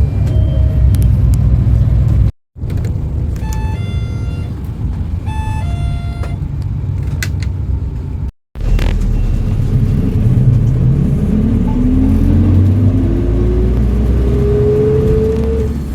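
City bus running with a steady low engine rumble. In the middle part a stop-request chime sounds twice. Near the end the bus pulls away, with a whine that climbs steadily for about five seconds as it accelerates.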